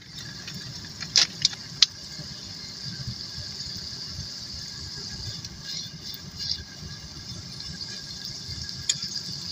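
Pork chops sizzling in a pan on a wood stove, a steady hiss over a low rumble. There are three sharp pops about a second in and another near the end.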